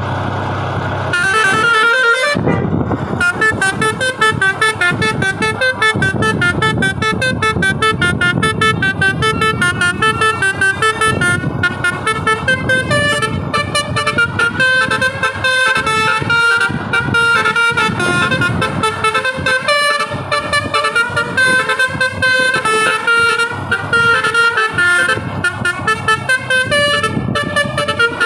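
Telolet basuri horn on a Rizky Abadi bus, its roof-mounted horn trumpets playing a fast melody of short, stepped notes. There is a brief break about two seconds in.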